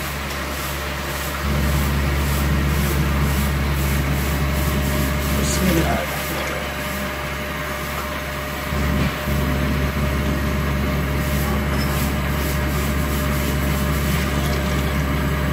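A steady low hum that steps up in level a few times, rising about a second and a half in, dropping about six seconds in and rising again about nine seconds in, under a faint even hiss.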